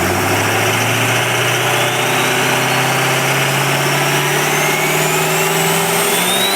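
A car engine running steadily, its pitch climbing slowly and evenly, with a high whine that rises along with it.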